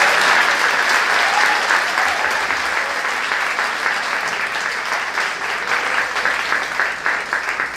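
Theatre audience applauding, loud at first and slowly thinning, so that single claps stand out more toward the end.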